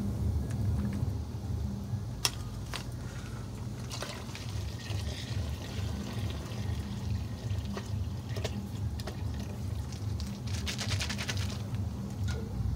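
Milk pouring from plastic packets into a large aluminium pot of hot water, with a few sharp clicks and a quick run of ticks near the end.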